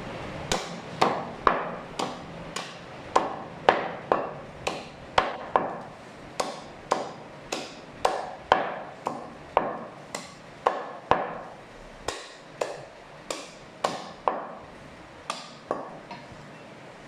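Heavy butcher's cleaver chopping goat meat into pieces on a wooden chopping block: a steady run of sharp chops, about two a second, stopping shortly before the end.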